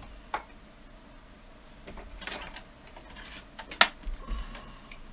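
Small clicks and knocks of things being handled on a workbench, with some rustling; the sharpest click comes about four seconds in.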